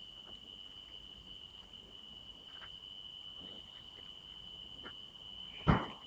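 An insect trilling steadily at one high pitch, with a sharp knock near the end.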